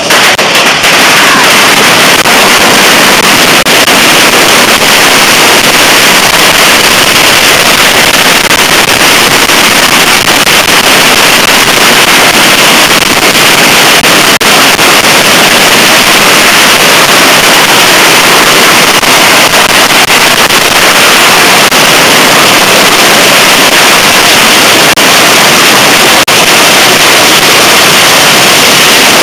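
A Yanshui beehive rocket launcher firing masses of bottle rockets and firecrackers into the crowd: a continuous dense wall of hissing and crackling bangs with no let-up, so loud that the recording is overloaded.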